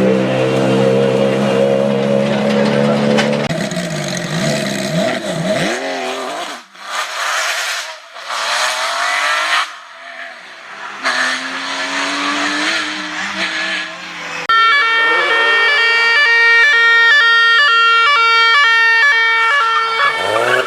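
Rally car engines at high revs passing at speed, the first holding a steady note before fading about a third of the way in, followed by further passes. In the last third a sequence of held tones stepping in pitch sounds over the engines.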